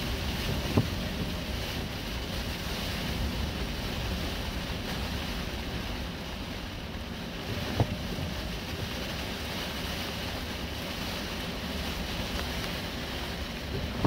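Rain and strong wind beating on a moving car during a severe thunderstorm, with tyre noise on the wet road: a steady rushing noise. A short thump comes about a second in and another just before eight seconds.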